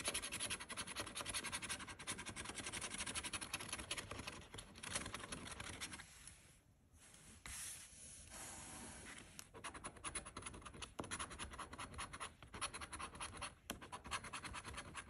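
A coin scraping the coating off a scratch-off lottery ticket in quick, repeated strokes, with a short pause about six seconds in.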